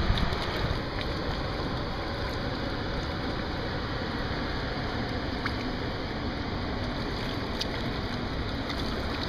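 Steady rush of a river in high water below a dam, an even noise without breaks.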